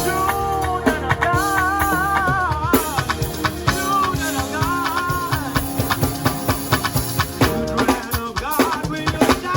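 A live band plays with a drum kit keeping a steady beat under sustained chords. A voice sings long wavering notes over it, twice.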